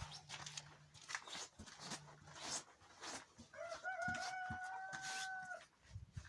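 A rooster crowing once, a long held call starting about three and a half seconds in. Scattered clicks and rustles run throughout, with a low hum in the first couple of seconds.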